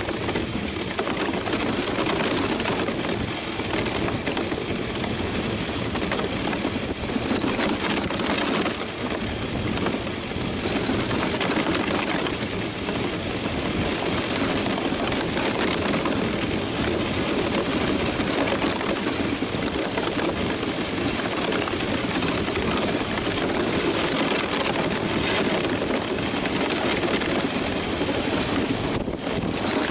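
Steel runners of a DN iceboat running over the ice under sail, making a steady, crackly rumbling hiss as the boat gathers speed.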